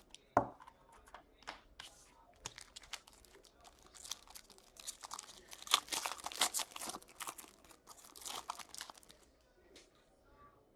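A trading card pack's foil wrapper being torn open and crinkled in the hands, a run of dense crackling tears heaviest in the middle, after a single knock about half a second in.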